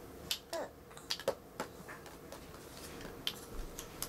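Felt-tip marker writing on a small hand-held sheet of paper: a scatter of short, quiet scratches and clicks, with one brief falling squeak about half a second in.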